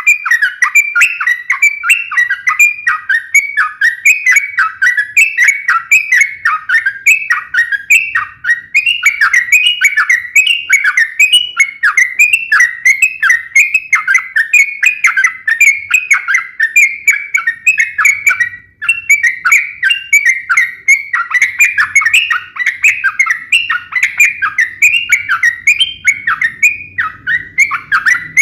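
Yellow-vented bulbul (cucak trucuk) singing a rapid, continuous run of sharp chirping notes, each sliding downward, in the fast 'ropel' fighting style. It breaks off briefly about two-thirds of the way through.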